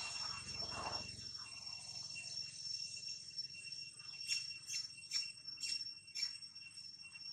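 Insects droning with a steady high whine. A little after the middle comes a quick run of about six sharp falling chirps.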